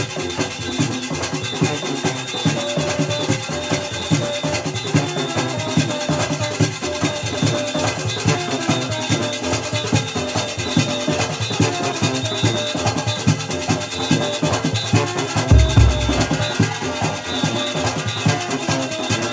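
Junkanoo band playing live: goatskin hand drums and a metal barrel drum beating a fast, dense rhythm, with pitched instrument lines over it. A heavy low thud stands out about three-quarters of the way in.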